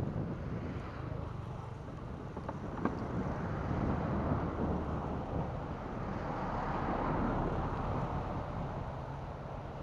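Outdoor background noise: a steady low rumble under a rushing haze that swells for a few seconds mid-way.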